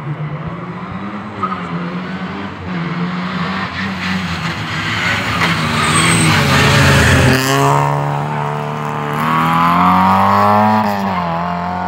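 Rally car engine at full stage pace, approaching with the revs rising and falling through gear changes. It is loudest as it passes close by about six to seven seconds in, then accelerates away, the revs climbing and dropping again near the end with a shift.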